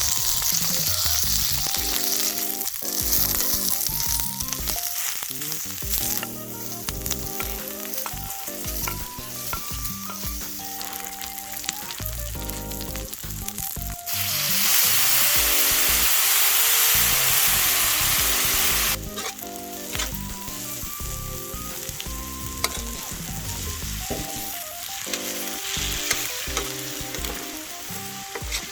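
Food frying and sizzling, the sizzle swelling much louder for about five seconds midway through. Background music with plain, stepped notes plays along.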